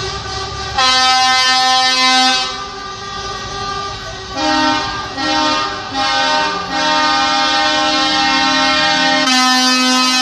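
Truck air horns sounding: a long held blast about a second in, a few short toots around the middle, then long held blasts, with more than one horn's pitch sounding at once.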